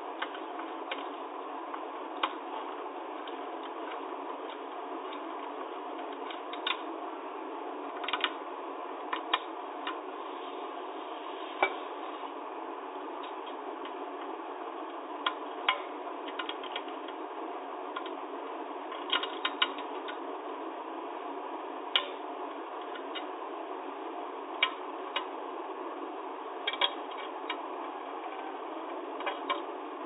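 Irregular sharp clicks and taps of a screwdriver working on a manual typewriter's mechanism, a few seconds apart, over a steady background hiss.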